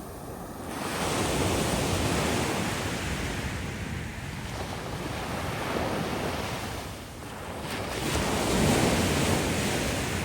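Ocean waves washing in: one swell of surf rises about a second in, fades, and a second, louder one builds near the end.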